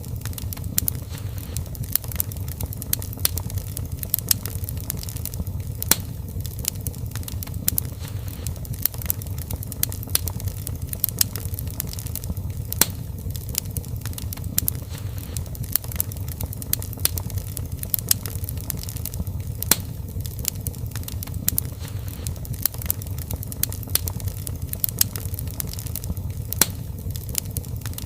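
Wood fire burning in a fireplace: a low steady rumble of the flames with frequent sharp, irregular crackles and pops.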